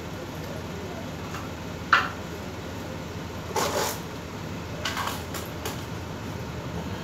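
A few separate clicks and knocks of small hard tools and fittings being handled, the sharpest about two seconds in, with a short scrape midway and a few lighter clicks later, over a steady low background noise.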